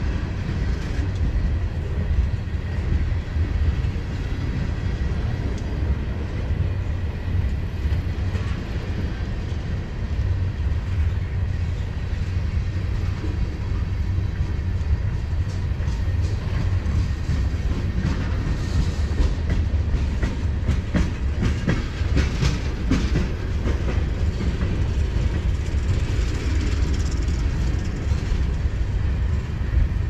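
Freight train led by an EMD SD70ACe-T4 diesel-electric locomotive rolling past: a steady deep rumble from the engine and train, with a run of wheel clicks over the rails through the middle of the stretch. No horn.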